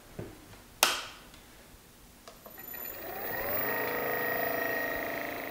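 A sharp knock, then the home-made shaper milling head's motor and spindle start up about two and a half seconds in, rising in pitch for about a second and then running steadily with a whine, the 12 mm carbide end mill spinning free before the cut.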